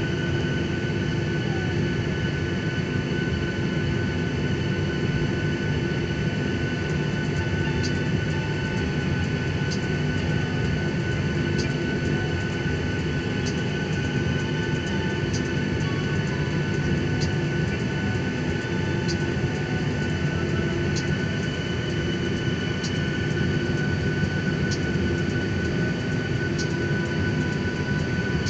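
Jet airliner heard from inside the cabin while taxiing: a steady engine hum and low rumble with a constant whine. Faint clicks come about every two seconds through the second half.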